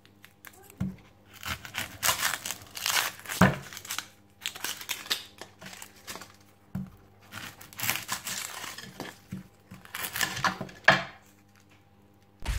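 Dry, papery onion skin crackling and tearing in irregular bursts as an onion is peeled by hand with a knife, with a few sharp knocks.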